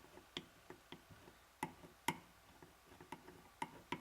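Faint, irregular light clicks and taps of a flathead screwdriver working over tape on the plastic fan housing, smoothing out bubbles.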